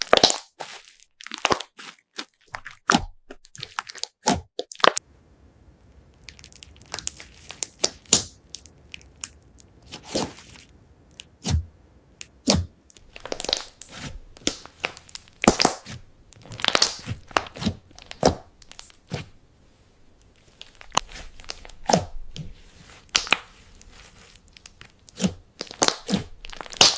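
Slime being folded and pressed, making irregular crunchy pops and crackles, sometimes in quick clusters with short pauses between.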